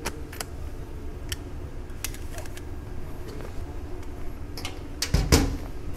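Camera gear handled over an open padded camera bag while a lens is swapped on a Canon 5D Mark III: a scatter of small clicks and taps, then a louder cluster of knocks and rustling about five seconds in.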